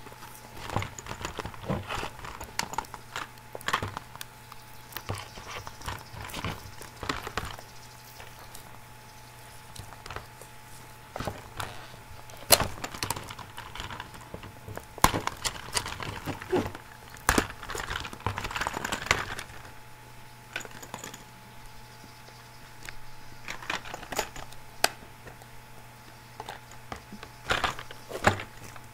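A plastic toy blister pack being pried open and handled: irregular crackles, snaps and crinkles of stiff plastic against its cardboard backing card, with a couple of sharper cracks about twelve and seventeen seconds in.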